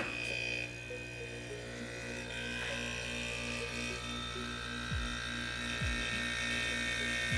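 Air-conditioner rotary compressor running with a steady electric hum and a faint regular pulsing. The owner suspects it is not reaching the back pressure it needs to work right, as it is putting out very little air.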